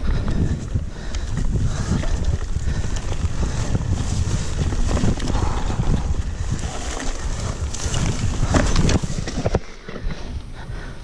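Mountain bike riding down a rough grassy singletrack: a steady rumble of tyres over uneven ground, with the bike's rattles and knocks and wind on the camera microphone. The noise drops off suddenly near the end.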